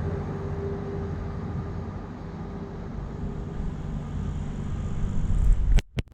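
Road traffic, a steady rumble of passing vehicles with a low engine drone, swelling briefly and then cutting off abruptly near the end with a couple of sharp clicks.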